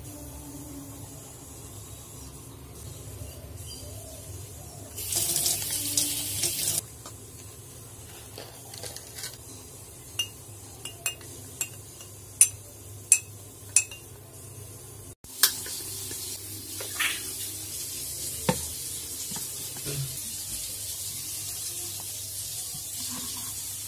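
Metal teaspoon stirring chocolate syrup into milk in a glass mug, striking the glass in a run of about seven sharp, ringing clinks. Before the clinks there is a brief loud rushing noise lasting about two seconds, and after them a steady hiss with a few lighter clinks of a spoon against a bowl.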